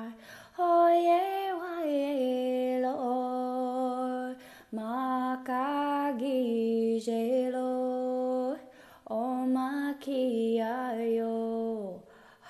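A woman singing unaccompanied, a prayer song in long held notes. Three phrases, each stepping down in pitch, with short breaks for breath between them.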